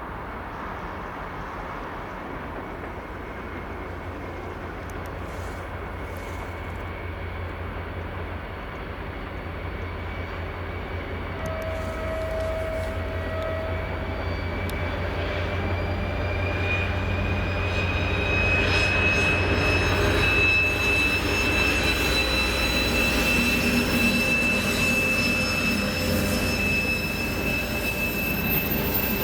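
TEP70 diesel locomotive approaching under power: its 16-cylinder diesel rumble grows steadily louder. About halfway through, the turbocharger's high whistle comes up and rises slightly in pitch, the turbine whistle typical of early TEP70s.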